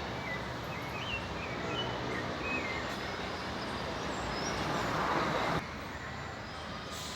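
Sabiá thrush singing short whistled phrases, fairly faint over a steady low background noise. A swell of noise builds about four and a half seconds in and cuts off suddenly.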